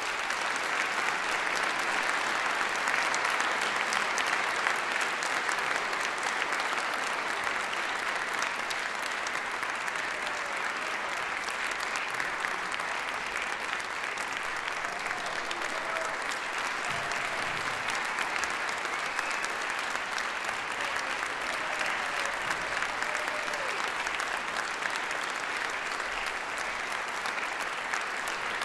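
Audience applause in a concert hall, breaking out just after the music stops and keeping a steady level, loudest in the first few seconds, with a few faint calls heard in the middle.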